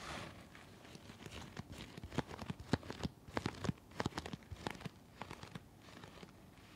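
An N95 respirator mask handled close to the microphone, its material crinkling and crackling in a quick, irregular run of sharp clicks that thins out near the end.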